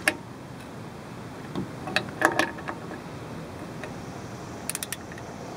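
Ratchet and socket tightening a wheel cylinder mounting bolt on a drum brake: a few scattered metallic clicks, then a quick run of four ratchet clicks near the end.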